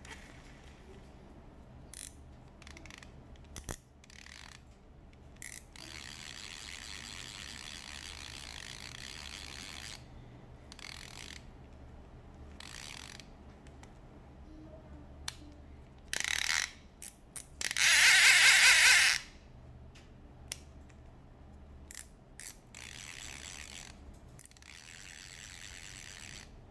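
Okuma Komodo baitcasting reel being handled, giving scattered mechanical clicks and one loud ratcheting burst of about a second, about two-thirds of the way through.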